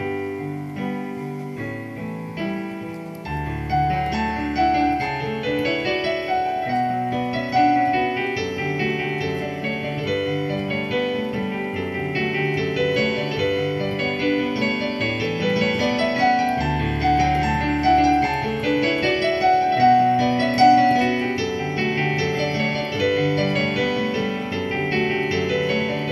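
Piano playing a flowing piece of many quick notes, with a deep held bass note coming in about three seconds in and again near the middle.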